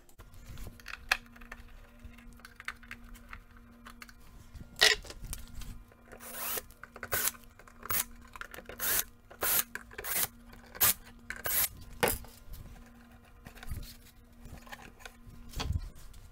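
Screws being backed out of a wooden console stereo cabinet's back panel. The tool work comes as a run of short, sharp scraping bursts, several in quick succession from about five seconds in, fewer near the end, over a faint steady hum.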